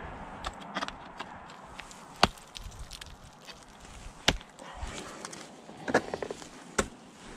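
Ice tool picks striking into ice: a few sharp, hard strikes, the loudest about two and four seconds in and twice near the end, with lighter crunching and ticking between them.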